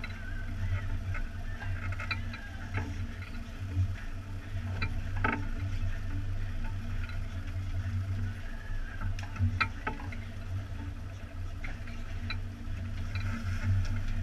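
Twin outboard motors idling with a steady low hum, with scattered clicks and knocks over it.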